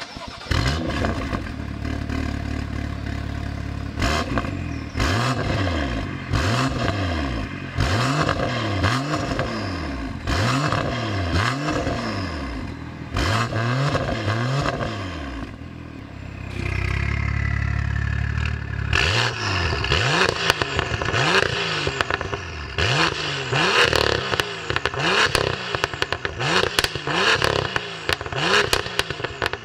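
BMW M2's turbocharged straight-six, with a PP Performance 450 hp tune and an Fi exhaust, revved again and again in quick blips. Each rise and fall in pitch is followed by exhaust crackles and pops. About halfway through the revs are held steady for a couple of seconds, then the blipping starts again.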